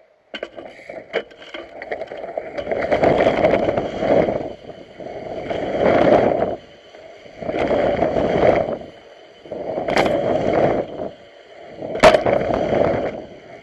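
BMX bike ridden through a line of dirt jumps: rushing tyre and wind noise that swells and falls away about every two seconds, with a few sharp knocks from the bike.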